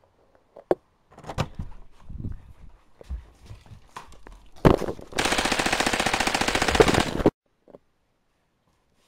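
Scattered knocks and bumps, the loudest just before a burst of rapid machine-gun fire: about two seconds of fast, evenly spaced shots that cut off suddenly.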